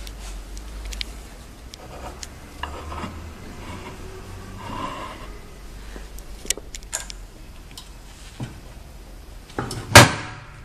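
Swing-away heat press having its upper platen swung side to side on its pivot: metal rubbing and scattered small clicks over a low steady hum, with one loud knock near the end.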